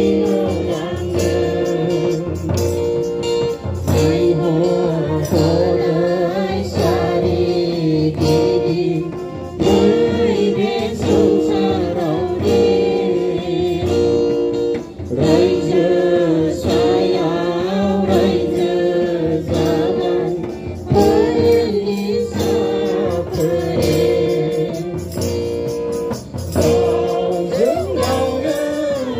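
A group of voices singing a gospel hymn together, accompanied by a harmonium's held reed chords and a double-headed hand drum keeping a steady beat.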